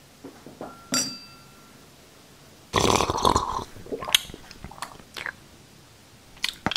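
Close-miked eating sounds: a light clink with a short ring about a second in, then a loud wet mouth sound lasting about a second, followed by scattered small crackles.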